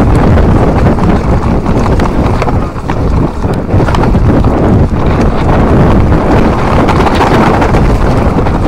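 Mountain bike descending a rocky singletrack fast: wind rushing over the camera microphone, with tyres crunching and the bike rattling and knocking over stones.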